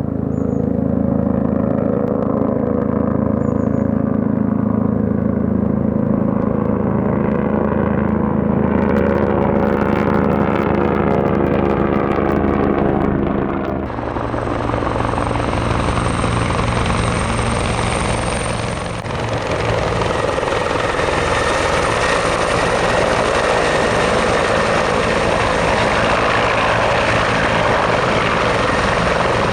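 Helicopter running close by at a steady loud level. About fourteen seconds in, the sound changes from a set of steady engine tones to a denser rotor noise with a thin high turbine whine over it.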